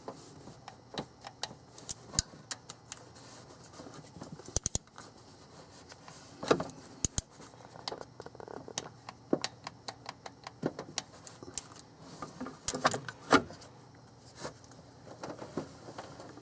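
Scattered metallic clicks and clinks from a socket, extension and torque wrench being fitted onto and turned on the bolts of a new water pump during a torque pass. A few sharper clicks stand out among the lighter ticking.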